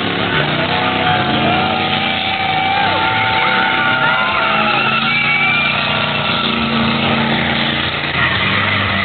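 Chrysler 400 big-block V8 held at high revs in a burnout, with the tires squealing in long wavering tones.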